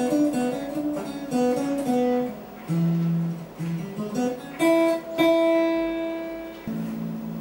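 Acoustic guitar played by hand: a melody of single plucked notes, moving quickly at first, then a few longer notes left to ring out about two-thirds of the way through.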